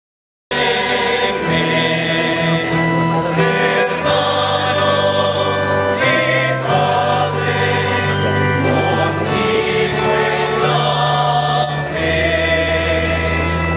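Background music: a choir singing slow, long-held notes, beginning about half a second in.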